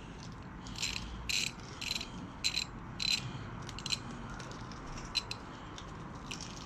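Ratchet wrench clicking in about five quick strokes, roughly two a second, followed by a few fainter clicks, as a fastener on the motorcycle's front end is worked loose.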